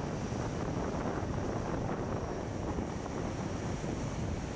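Four Allison T56 turboprop engines of a Lockheed WP-3D Orion running as it taxis, a steady roar with a faint high whine, mixed with wind buffeting the microphone.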